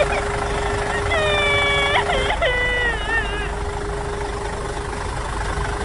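Tractor engine running at idle with a low rumble and a steady hum. About a second in come two held, pitched, voice-like cries, each about a second long, falling in pitch at the end.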